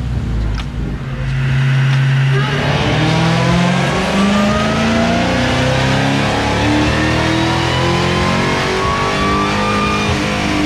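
Supercharged 6.2-litre Hemi V8 of a 2020 Dodge Charger Hellcat at full throttle in a single long gear pull on a chassis dyno. The engine note and the supercharger's blower whine rise steadily together from about a second and a half in, then ease off briefly near the end.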